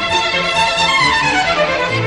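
Instrumental bridge music between drama scenes, led by a violin over a bass line, its melody falling in pitch through the second half.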